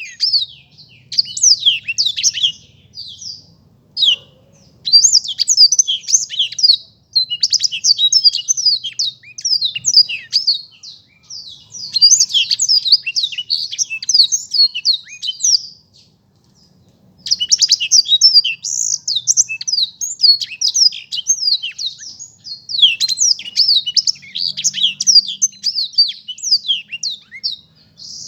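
Blackthroat (black-throated canary) singing long runs of clear, rapid, high-pitched chirping phrases, with a few brief pauses between runs.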